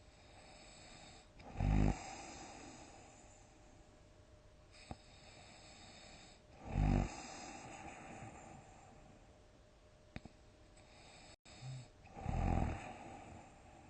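A person snoring loudly in deep sleep: three big snores about five seconds apart, each a short, low rattling sound.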